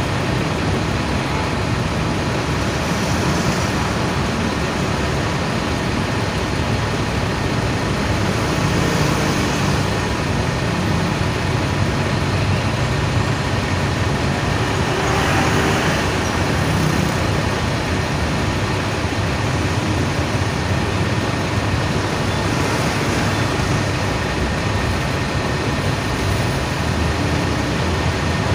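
Steady rumble of motor vehicles, the noise of idling buses and road traffic, holding at an even level throughout.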